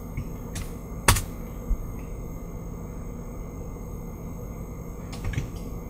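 A few short clicks from working the computer, with one sharp loud click about a second in, over a steady low electrical hum and hiss.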